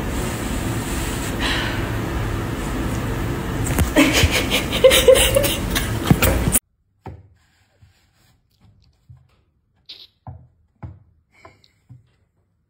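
A steady hiss of room noise, then a woman laughing in choppy bursts that cut off suddenly. After the cut, a few scattered soft taps and knocks.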